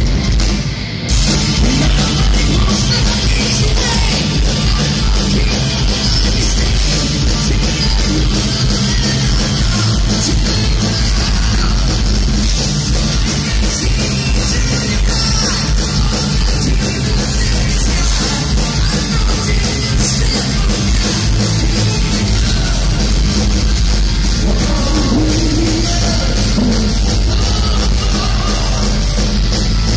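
Power metal band playing live: distorted electric guitars, bass and drum kit, with a male singer's vocals. After a short drop about a second in, the full band comes back in.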